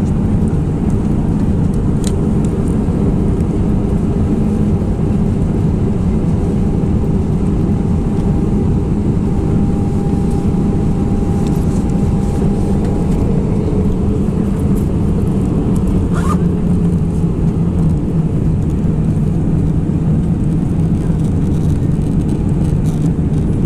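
Airbus A319 in flight heard from inside the cabin: a loud, steady, low rumble of engines and rushing air, with a faint steady tone above it that fades out about halfway through.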